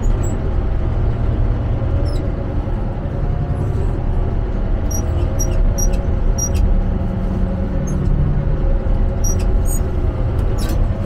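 Motor grader's diesel engine running steadily as it makes a light grooming pass over a recycled-concrete gravel base. A deeper engine tone comes in from about six and a half to nine seconds in, and there are irregular light clicks.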